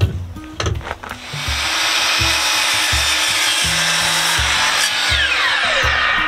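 DeWalt sliding compound miter saw cutting through a wooden board. The saw's loud cutting noise starts about a second in, and a falling whine near the end is the blade winding down.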